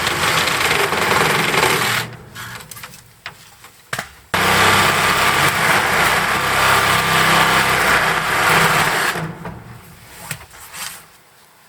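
A motorised power tool running in two long bursts, cutting off about two seconds in and starting again abruptly a couple of seconds later, with a few small knocks in the gap between.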